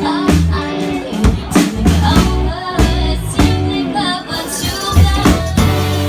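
Live band playing a song: a woman sings lead over electric guitar, bass guitar, drum kit and electric keyboard, with drum hits marking a steady beat.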